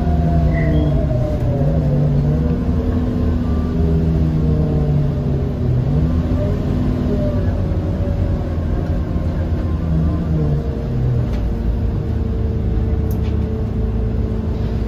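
Scania K230UB city bus's diesel engine running under way, its revs falling over the first few seconds and then holding steady at low revs with a low rumble.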